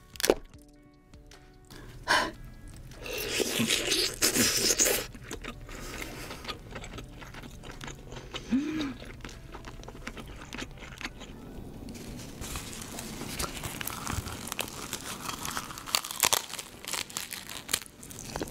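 Cooked king crab shell being cracked and torn apart by hand: sharp cracks, a longer stretch of crunching and crackling a few seconds in, then scattered clicks as the meat is pulled out and eaten, over soft background music.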